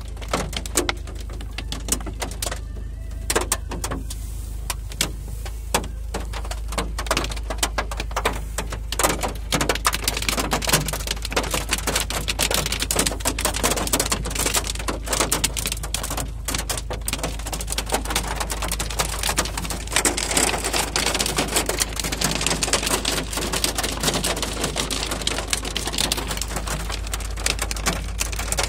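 Hailstones hitting a car's roof and windscreen, heard from inside the car: a dense, fast patter of sharp ticks that thickens about a third of the way in, over a steady low hum.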